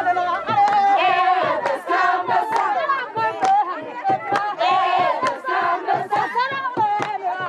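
A crowd of women singing and ululating in high wavering calls, with hand claps throughout.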